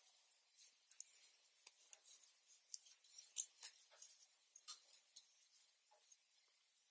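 Hand-knitting: faint, irregular clicks and light clinks of knitting needles working stitches, with metal wrist bangles knocking as the hands move. The clicks come thickest in the middle and thin out near the end.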